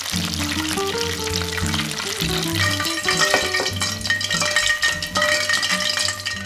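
Starch-coated chicken pieces deep-frying in hot oil, a steady crackling sizzle, under background music with plucked notes.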